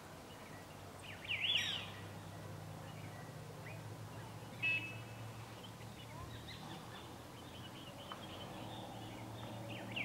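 Wild birds calling: a quick run of sweeping high notes about a second and a half in, a short clear note near the middle, faint scattered chirps, and another sweeping run at the end, over a steady low hum.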